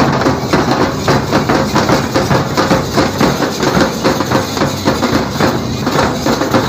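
Several dhol drums beaten hard with sticks in a fast, steady rhythm of dense strokes.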